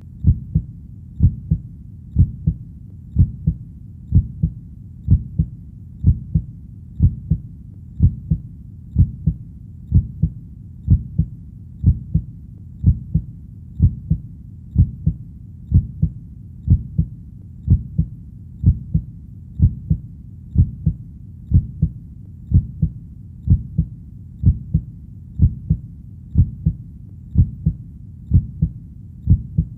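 Heartbeat beating slowly and steadily, about one beat a second, each beat a low double thump.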